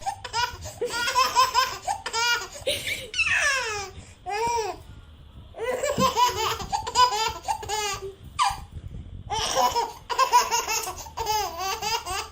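A baby laughing loudly in fast, repeated bursts of giggles, in bouts with short pauses between them and a falling squeal about three seconds in.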